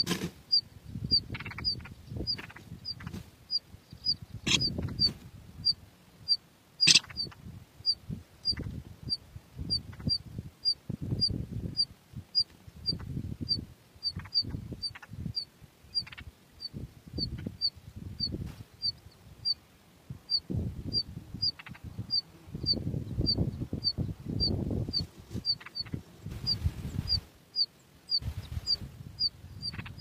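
Short high chirps repeated at an even pace, about two a second, over irregular low rumbling bursts, with a few sharp clicks.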